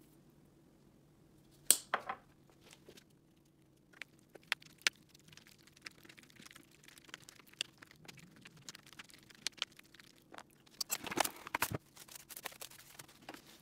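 Faint clicks and scrapes of a utensil stirring marinating beef in a plastic container, with a sharp click about two seconds in. Near the end, plastic cling wrap crinkles and rustles as it is pulled over the container.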